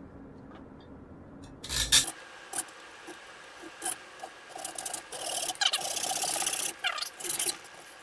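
Hand hacksaw cutting kerf slots into a metal pick blank clamped in a steel vise. There is a sharp knock about two seconds in, then a few short saw strokes and a longer steady stroke a little past the middle.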